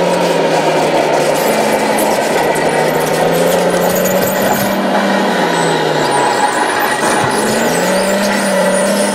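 Radio-controlled scale model crawler dozer running and crawling forward on its tracks, a steady motor hum whose pitch sags and rises several times as the drive changes speed.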